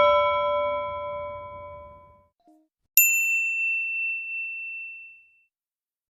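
Two bell-like ding sound effects. The first is a lower, fuller bell ring that fades away over about two seconds. About three seconds in comes a single bright, high ding that also rings out and fades.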